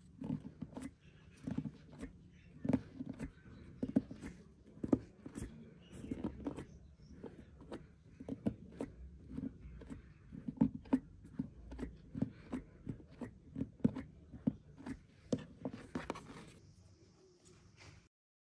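A bread stamp with metal pins pressed again and again into a round of flatbread dough on a wooden board: dull, irregular taps, a few a second. Near the end, a short rustle of cloth.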